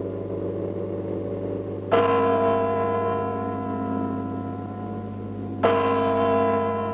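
A large clock bell striking twice, about four seconds apart, each stroke ringing on and fading slowly, over the ringing of an earlier stroke. A steady low hum runs underneath.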